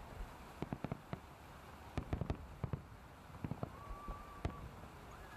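Aerial fireworks shells bursting in a large salute display: irregular sharp bangs, several coming in quick clusters, over a steady background rumble.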